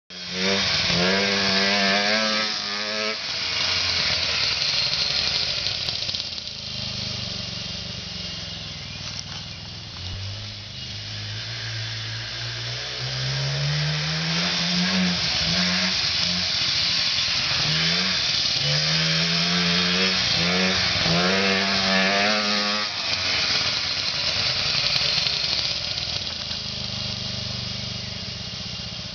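Two-stroke car engine in a go-kart, revving hard and easing off again and again as the kart accelerates and slows through its laps, its pitch climbing and falling each time. Near the end it settles to a lower, steadier note.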